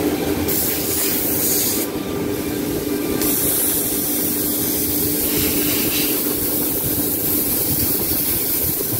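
Holztek PRO-R4F CNC nesting machine running: a loud, steady machine hum under a strong airy hiss. The hiss eases off for about a second around two seconds in, then comes back.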